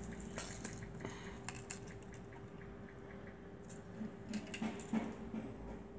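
Faint scattered clicks and light rustles of small objects being handled, over a steady low hum.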